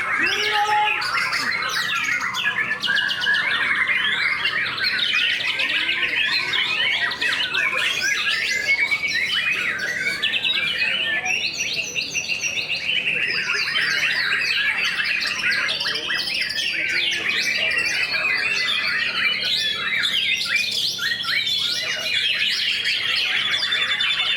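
Several white-rumped shamas (murai batu) singing at once: a dense, unbroken tangle of overlapping whistles and rapid chirps.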